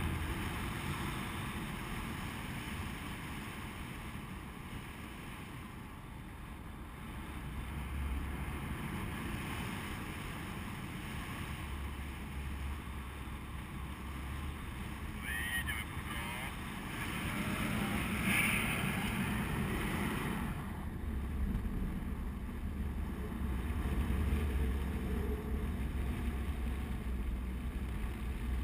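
Airflow rushing over the microphone of a camera worn by a paraglider in flight, a steady low rumbling buffet that swells and eases in gusts.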